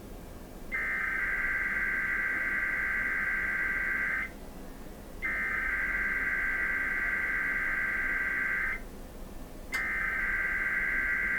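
NOAA Weather Radio SAME header: three bursts of harsh digital data tones, each about three and a half seconds long with a pause of about a second between them, the third still going at the end. These coded bursts open a weather-radio Required Weekly Test.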